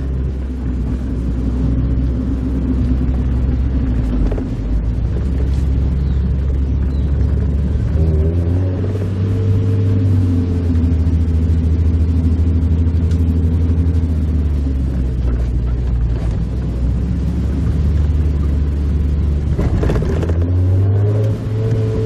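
Mazda Roadster's four-cylinder engine running under way, heard from inside the open-top cabin as a steady drone. Its pitch steps up about eight seconds in, eases back down around the middle, and steps up again near the end just after a brief rush of noise.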